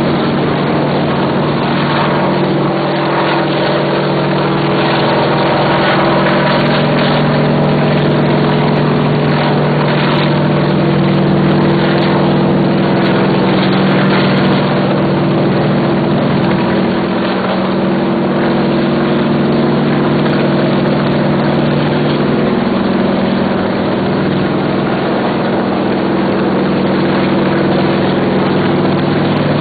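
Helicopter running steadily: a loud, even drone with several steady low tones over a constant rushing noise.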